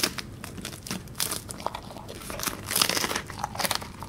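Ice-cream packaging crinkling and rustling as it is handled, in irregular short crackly bursts.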